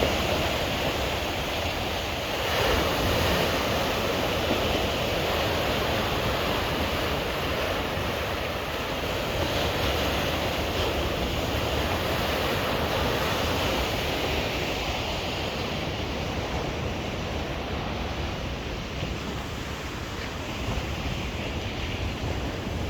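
Sea waves washing onto the shore in a steady rush of surf, swelling a little about three seconds in.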